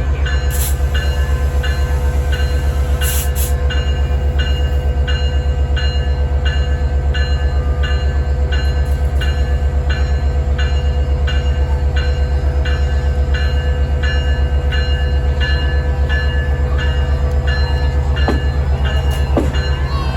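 Diesel locomotive of a departing train running close by with a heavy, steady low rumble, while a bell rings evenly about twice a second.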